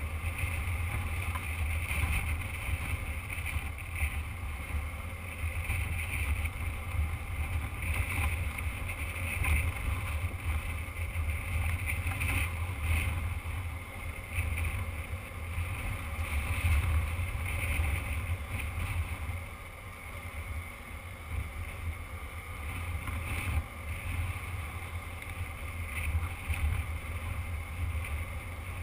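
Motorcycle ridden at steady speed on a gravel road: the engine runs under heavy wind buffeting on the microphone, with a rushing noise that rises and falls.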